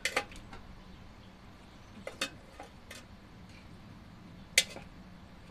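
Scattered sharp metallic clicks and clinks of parts and hand tools being handled in a car's engine bay, about half a dozen in all, the loudest a little before the end.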